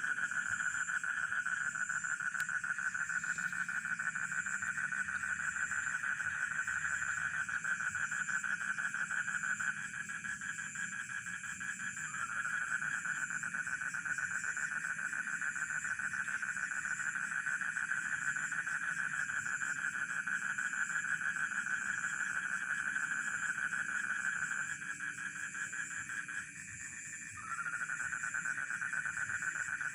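A dense, steady chorus of rice-field frogs calling, with crickets chirping in a high pulsing trill above it. The frog chorus breaks off twice for a couple of seconds, about ten seconds in and again near the end, then starts up again.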